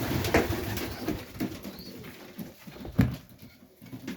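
Domestic highflyer pigeons cooing in a small loft, busiest in the first second or so and then thinning out. A single sharp knock about three seconds in is the loudest sound.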